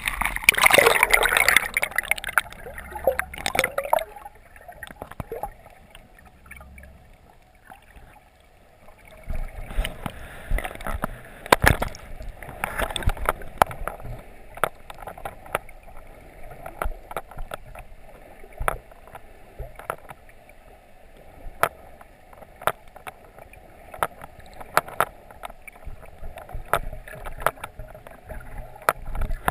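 Sea water heard through an action camera's waterproof housing as it goes under: splashing at the surface for the first few seconds, then a muffled wash of moving water with many sharp clicks and ticks.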